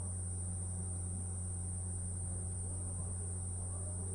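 Steady low electrical mains hum with a faint high-pitched whine: the recording's background noise, with nothing else sounding.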